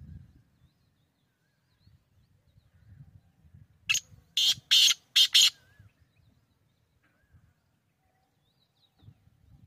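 Black francolin calling: one loud call of four short notes in quick succession, about four seconds in.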